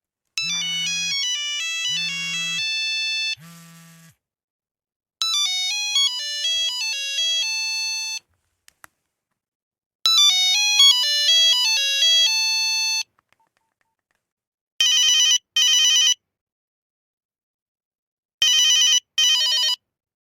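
Electronic phone ringtones, one after another. First a quick melodic jingle with a low buzz pulsing under it three times, then a longer melodic tune played twice with a pause between. Near the end comes a double ring of two short bursts, heard twice.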